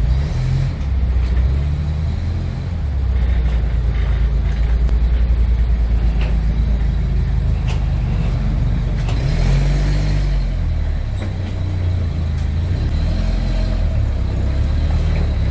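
Large truck's engine running with a steady low rumble.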